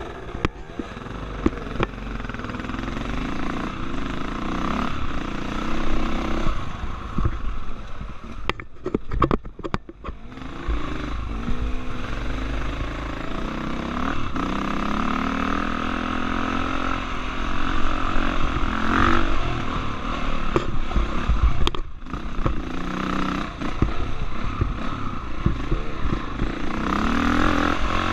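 Dirt bike engine being ridden on a rough trail, its pitch rising and falling as the throttle opens and closes, with the engine dropping off briefly about a third of the way in and again near 22 s. Knocks and clatter from the bike jolting over bumps sound through it.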